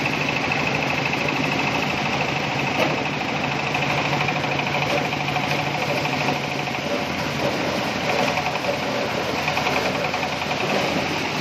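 Engine-driven corn sheller running steadily on a test run, with one short knock about three seconds in.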